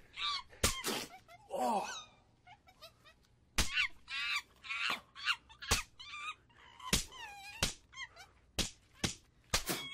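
A series of about ten sharp open-hand slaps, mixed with the high, squeaky chattering calls of a capuchin monkey.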